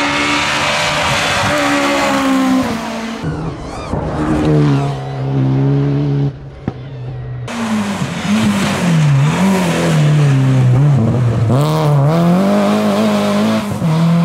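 Rally car engines revving hard as the cars pass at speed, pitch rising and falling with gear changes and lifts. The sound switches abruptly to another car twice, about three seconds in and again near the middle.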